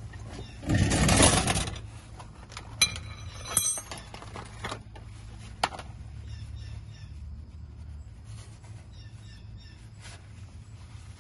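Handling noise under a vehicle: a loud rustle about a second in, then a few sharp clicks and a small metallic clink as a shop towel is worked around an exhaust clamp. Faint bird chirps follow in the later half.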